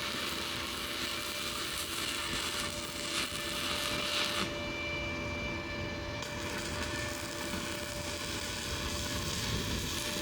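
A power tool running steadily, its high hiss cutting out for a couple of seconds near the middle.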